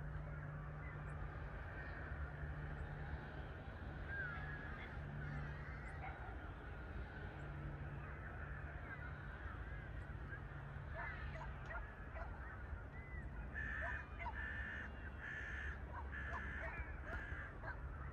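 Distant low rumble of a Boeing 787-9 jet airliner climbing overhead, with small birds chirping throughout. A run of about five loud, repeated calls from larger birds comes in the last few seconds.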